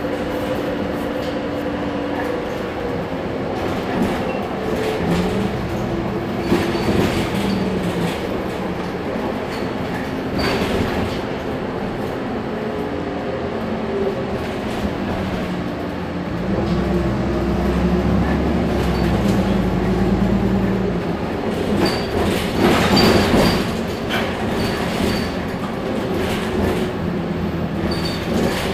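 Heuliez GX 137 city bus on the move, its engine and transmission pitch rising and falling as it speeds up and slows, with rattling and a deeper rumble for a few seconds past the middle. A louder rush of noise comes about three-quarters of the way through.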